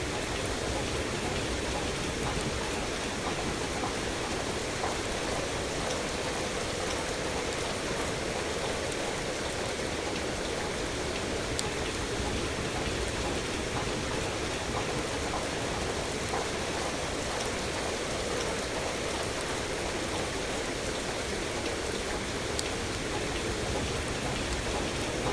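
Steady rain: an even, unbroken hiss, with a few faint sharp clicks scattered through it.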